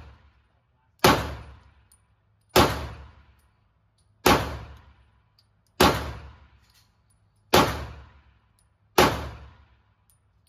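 Six pistol shots from a Canik TTI Combat 9mm, fired about a second and a half apart, each ringing off in the echo of an indoor range. The pistol cycles every round without a failure to return to battery.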